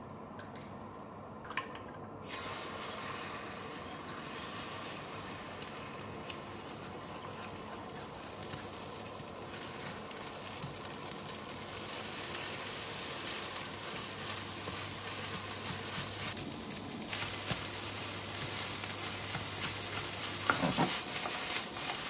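Food sizzling in a frying pan as it is stirred, the sizzle starting a couple of seconds in and slowly growing louder. A few utensil clinks against the pan near the end.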